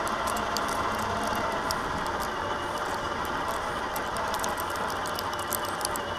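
Traxxas TRX-4 RC crawler truck driving through snow, heard from a camera riding on it: the steady whine of its electric motor and gears, with the chassis rattling and many small clicks and knocks.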